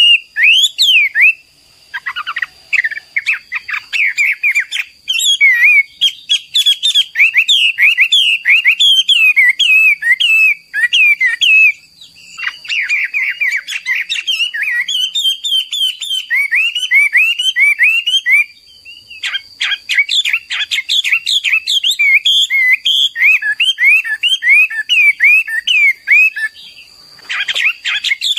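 Chinese hwamei (Garrulax canorus) singing: a long, loud, rapid song of quick rising and falling whistled notes, varied phrase to phrase, with a few short breaks. A faint steady high tone runs underneath.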